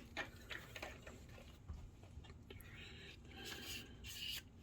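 Faint small clicks of plastic projector parts being handled, then two short scraping sounds near the end.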